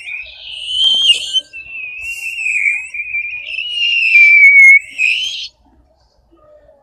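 A person making a long, high whistle-like squeak with the mouth, the pitch wavering and sliding slowly down, then rising again before it stops about five and a half seconds in; a short break comes about a second and a half in.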